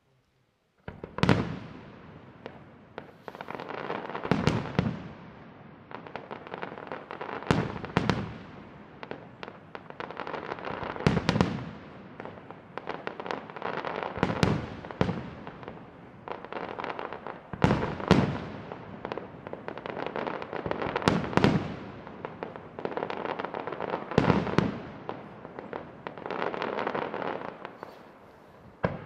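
Aerial firework shells bursting in a steady sequence, starting about a second in. A loud bang comes roughly every three seconds, and each is followed by a few seconds of dense crackling from the sparkling stars.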